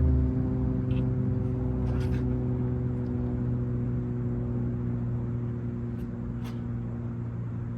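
Background music: a low sustained droning chord fading slowly, with a couple of faint clicks about six seconds in.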